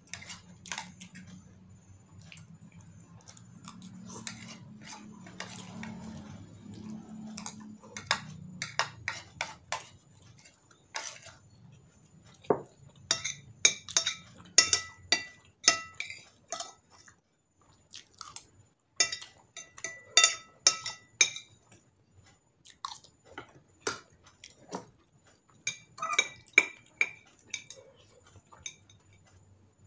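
Metal spoon clinking and scraping against a glass soup bowl and a ceramic plate while eating. The taps come in quick clusters in the middle, some ringing briefly, with chewing between them.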